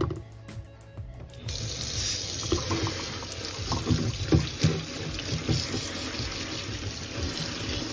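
Kitchen tap turned on about a second and a half in, running steadily onto a head of iceberg lettuce on a plate in a stainless steel sink, with low knocks from hands handling the lettuce and plate under the stream.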